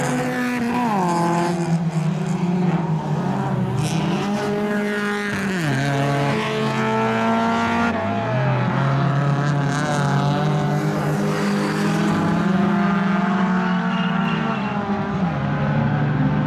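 Rallycross race cars' engines revving hard. The pitch climbs and then drops sharply a few times as the cars shift gear or brake.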